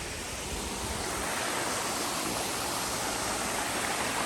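Stream water rushing steadily, growing a little louder over the first second or so.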